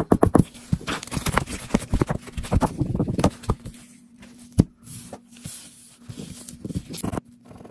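A plastic scratcher scraping the coating off a scratch-off lottery ticket in quick, closely spaced strokes. The strokes thin out into scattered scrapes and rustles, with one sharp tap a little past halfway.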